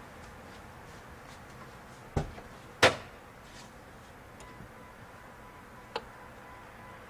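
Two sharp knocks a little over half a second apart, the second the louder, then a single lighter click a few seconds later; a faint steady high tone comes in between them.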